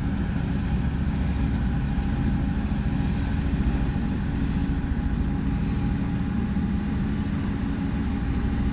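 Boat engine running steadily, a constant low drone with a faint steady hum above it.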